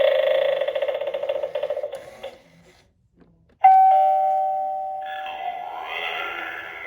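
Halloween animated eyeball doorbell prop playing its electronic sounds through a small speaker. A warbling sound effect fades out, and after a short pause an electronic two-note ding-dong chime starts suddenly about three and a half seconds in and rings on, slowly fading, as another sound from the speaker rises beneath it.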